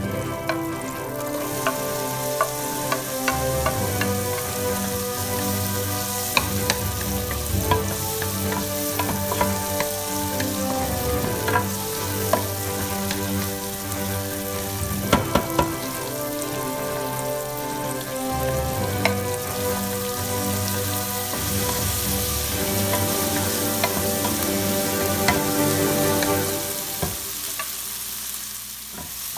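Diced onion and garlic sizzling in hot oil in a nonstick pan, with a wooden spoon knocking and scraping against the pan as they are stirred.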